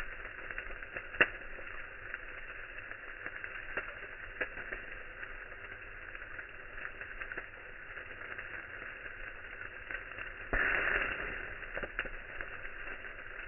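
Campfire crackling, with irregular sharp pops over a steady hiss and one loud pop about a second in. A louder hiss starts suddenly a little after ten seconds and fades away over about a second.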